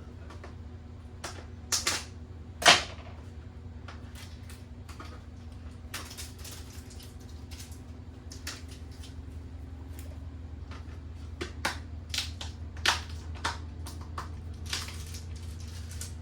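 A spoon scooping whipped cream out of a plastic tub into a mixing bowl: irregular clicks, scrapes and knocks of the spoon against tub and bowl, with one loud knock about three seconds in and busier clicking from about six seconds on, over a steady low hum.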